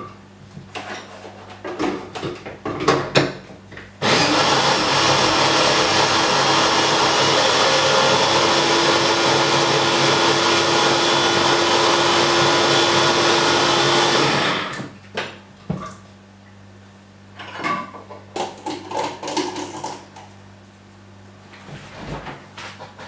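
Electric blender running for about ten seconds, blending fruit, peanut butter and milk into a smoothie. It starts suddenly about four seconds in, holds a steady whirr with a slight rise in pitch partway through, then winds down. Clicks and knocks of the jar being handled come before and after.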